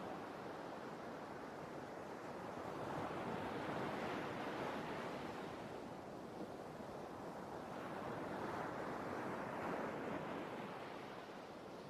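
Sea waves breaking and washing on the shore, a steady surf noise that swells twice, about four seconds in and again near nine seconds.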